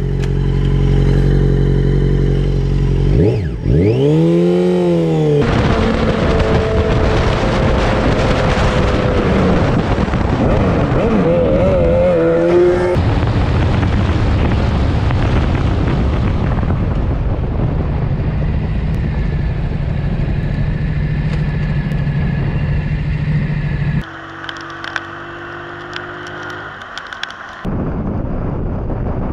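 Motorcycle engines running under way, with a rushing noise over the microphone, across several short riding clips joined one after another. About four seconds in, an engine revs up and falls back.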